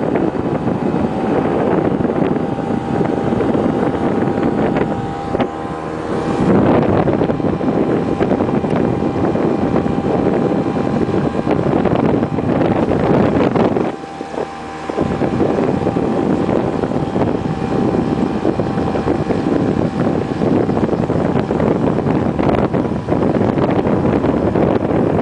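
Wind buffeting the microphone of a camera on a moving bike, a loud rough rushing that eases briefly about five seconds in and again around fourteen seconds. A faint steady whine sits under it in the first few seconds.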